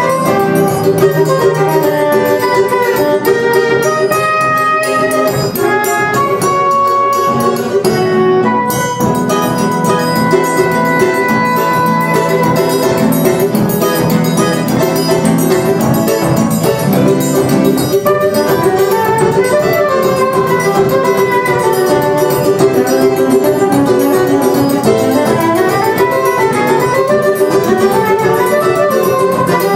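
Live Brazilian choro quartet playing a baião: soprano saxophone carrying the melody over acoustic guitar, cavaquinho and percussion.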